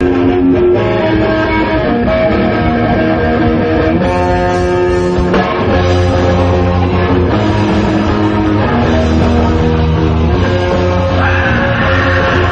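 Heavy metal band playing live, loud: distorted electric guitars hold notes that change every second or so over a heavy low end. A brighter wash of sound joins about eleven seconds in.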